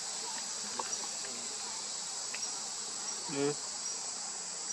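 Steady high-pitched chorus of insects buzzing, with a few faint ticks. About three and a half seconds in there is one short pitched vocal sound.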